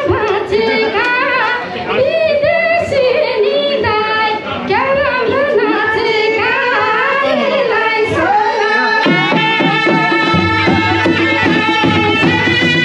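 Nepali folk music with a melody that bends and wavers in pitch; about nine seconds in, long held notes begin over a low steady drone.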